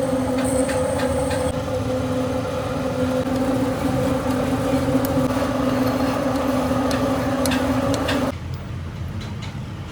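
Manual lathe running with a steady hum. The hum cuts off suddenly about eight seconds in, leaving a quieter machine noise with a few light clicks.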